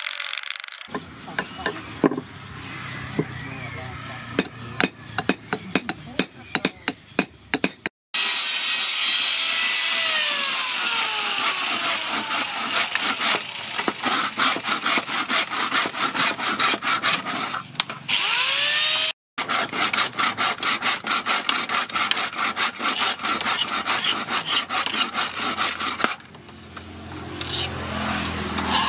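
A small axe chopping and shaving a wooden handle in quick repeated strokes, then a hand file rasping back and forth over the steel axe head in rapid regular strokes.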